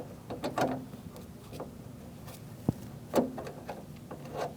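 Scattered light clicks and knocks of metal parts being handled inside a car door, as a bolt is started by hand into the door handle reinforcement. The sharpest knocks come a little past halfway.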